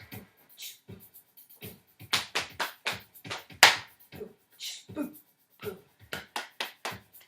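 Body percussion for a chanted cheer: a run of sharp hand claps and slaps, several a second in a rhythmic pattern.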